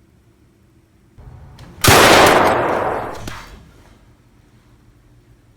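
A single loud gunshot about two seconds in, ringing out and fading over about a second and a half.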